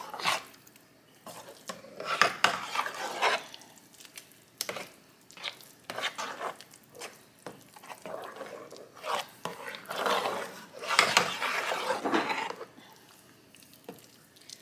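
Metal spoon stirring a wet, milky dressing mixture in a baking pan, scraping and clinking against the pan in irregular strokes, with squelching from the soaked mix.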